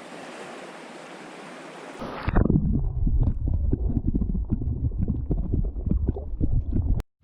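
Steady rush of river water, then, about two seconds in, heavy wind buffeting the microphone in loud, low, gusty blasts that cut out abruptly near the end.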